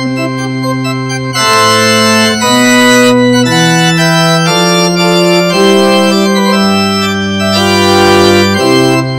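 Organ music: slow, held chords, the notes changing about once a second.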